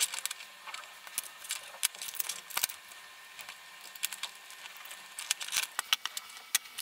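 Small irregular clicks and scrapes of fingers handling a 3D-printed plastic foot and threading fishing line through its holes, the clicks coming more often near the end.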